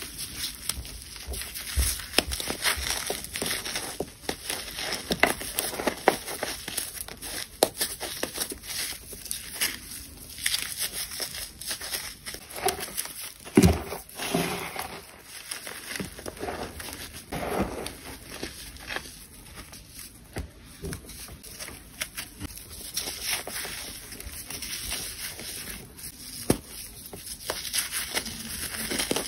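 Dried chunks of baking soda and sand crushed and crumbled by hand: dense crunching and crackling with many small sharp cracks, and one heavier crunch about halfway through.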